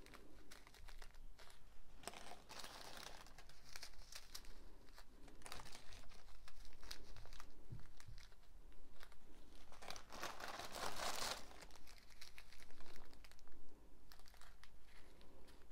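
Small plastic zip bags of diamond painting drills crinkling and rustling as they are handled and sorted, with a louder stretch of rustling about ten seconds in.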